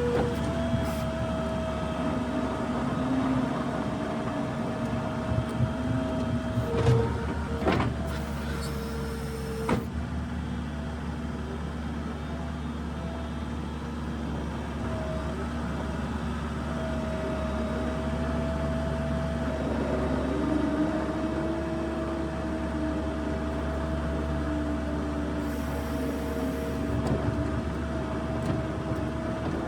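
New Holland LS170 skid steer's diesel engine running steadily while it moves snow, with a steady whine over the engine and a few knocks between about seven and ten seconds in.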